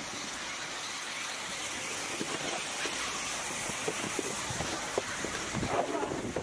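Snowboard sliding and scraping on snow as the rider gets off a chairlift, over a steady rushing hiss. Scattered knocks and scrapes grow louder over the last two seconds.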